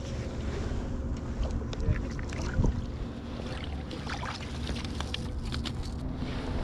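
Small trout splashing at the water's surface as it is reeled in and scooped into a landing net, with a run of short splashes through the middle, over steady wind noise on the microphone.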